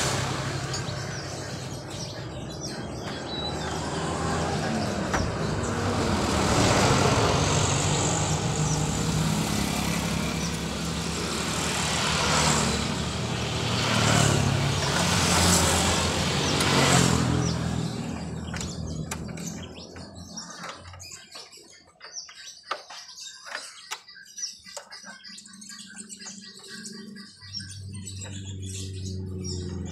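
A motor vehicle engine running, fading away about eighteen seconds in to leave quieter scattered clicks and chirps, then picking up again near the end.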